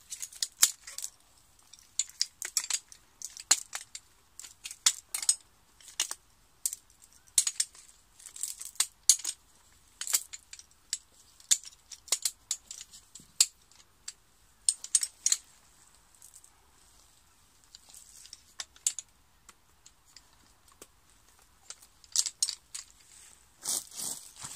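Aluminium shock-corded pole frame of a lightweight bucket-style camping chair being pulled apart and folded. The tube sections click and clink against each other in irregular clusters of sharp metallic taps, with a quieter pause for a few seconds past the middle.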